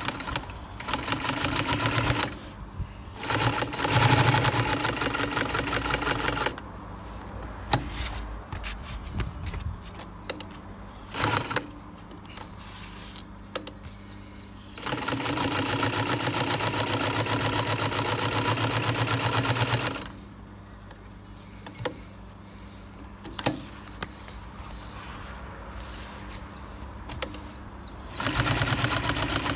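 Singer 132K6 walking-foot industrial sewing machine stitching through about 6 mm of thick leather in four runs of rapid, even stitching, the longest about five seconds. Between runs there are quieter pauses with a low hum and occasional clicks.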